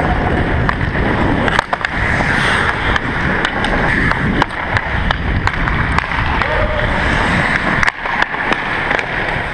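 Hockey skates scraping and carving the ice in a steady rush, crossed by many sharp clicks of sticks striking the puck and the ice.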